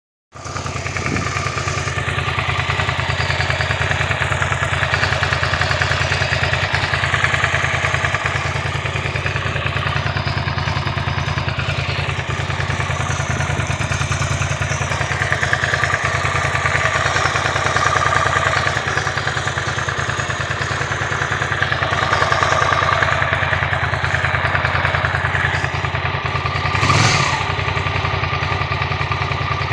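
Suzuki SV650 V-twin engine idling steadily, with a ticking or clicking noise in it that the owner suspects is the cam chain. There is a brief louder swell near the end.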